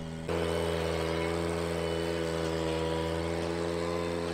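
Ventrac compact tractor's engine running steadily as it drives a power rake through the gravel driveway. It steps up in loudness about a third of a second in, then holds steady.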